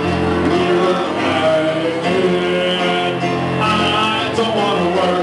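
Live band playing a song, with singing.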